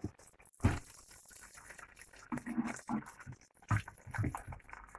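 Boiling water being poured into a pot over uncooked pasta, faint and coming in uneven gushes.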